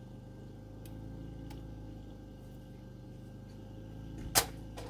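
A length of steel square tubing clanks sharply once as it is set down on the ground near the end, over a steady low machine hum.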